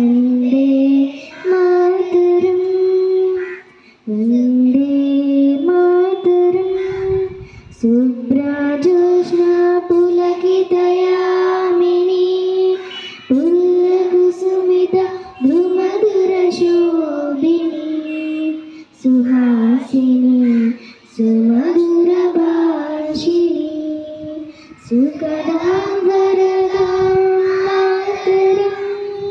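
Children singing a patriotic song into a microphone, holding long notes in phrases with short breaks between them.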